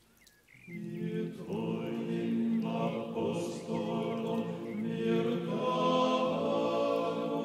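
Meditative background music of long, held chanted notes in layered voices, choir-like, swelling in within the first second.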